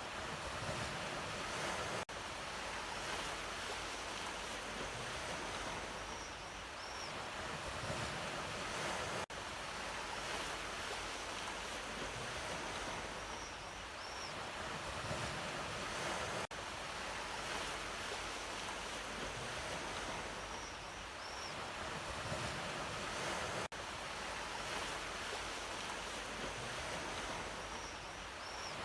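Sea waves washing ashore in a steady surf that swells and eases every few seconds. A brief dropout comes about every seven seconds.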